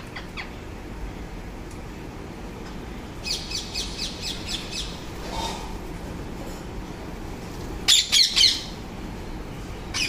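Rose-ringed parakeet squawking: a quick run of about eight shrill calls a few seconds in, then a louder burst of three or four harsh squawks near the end.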